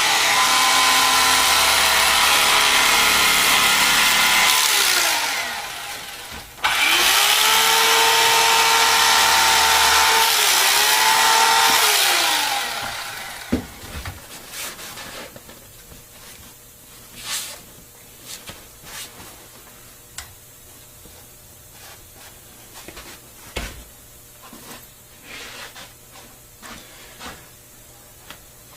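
A small handheld electric power tool runs twice, about five seconds each time. Each run spins up, holds steady and winds down. Afterwards come a sharp knock and scattered quieter clicks and rustles of handling.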